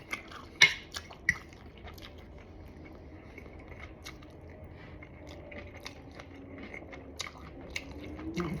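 Close-up chewing and mouth sounds of someone eating, with a couple of sharp clicks in the first second and a half.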